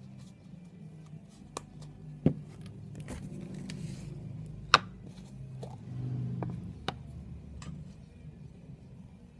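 Handling noise at a model-making workbench: scattered light taps and clicks, a brief rustle, a dull knock about two seconds in and a sharp click near the middle, over a low steady hum.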